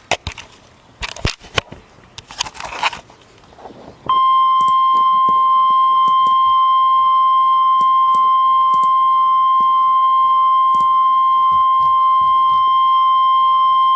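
A few short bursts of crackling noise and clicks. Then, about four seconds in, the NOAA Weather Radio 1050 Hz warning alarm tone comes on and holds one steady pitch for about ten seconds, signalling that a warning is about to be read.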